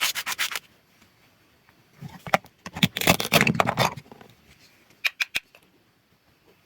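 Fruit or vegetables being cut, giving short runs of crisp clicking and crackling: a brief run at the start, a longer dense crackle in the middle and a few sharp clicks near the end.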